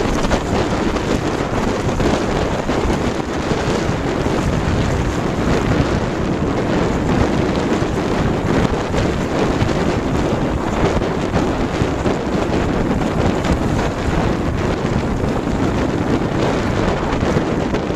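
Strong wind blowing across a smartphone microphone fixed to a sailboat's gunwale, a loud steady rush, mixed with water rushing along the hull.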